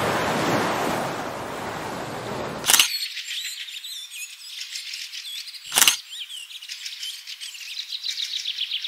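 A broad rushing noise that stops abruptly with a sharp crack about three seconds in, giving way to many small birds chirping and twittering high up; a second sharp crack comes about six seconds in.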